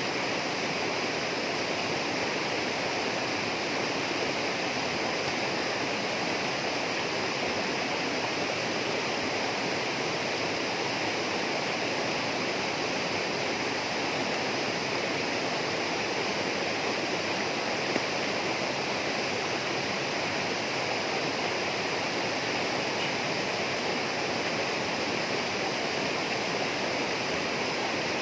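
Tropical rainforest ambience: a steady, unbroken rush of flowing water, with one brief click about eighteen seconds in.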